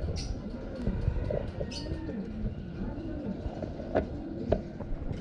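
Domestic pigeons cooing, a steady run of low coos that rise and fall in pitch. A couple of light knocks sound about four seconds in as the plastic drinker is handled.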